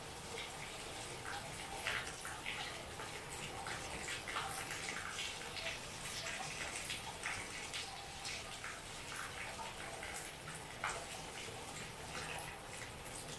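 Heavy rain falling, a steady hiss with frequent irregular drips and splashes close by.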